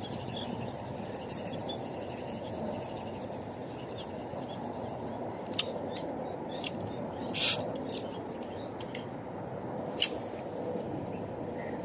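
Handling noise from a spinning rod and reel: several sharp clicks and knocks, the loudest a short burst a little past halfway, then a cast about ten seconds in, a click and a brief hiss of line leaving the spool. A steady low background rumble runs underneath.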